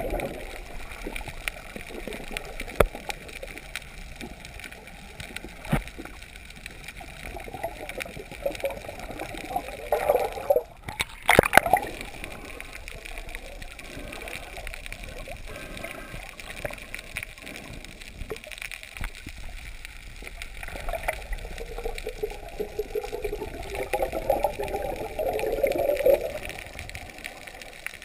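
Water heard through an underwater camera: a steady muffled rush with scattered sharp clicks and gurgling, bubbly stretches, and a brief loud splash-like burst about eleven seconds in.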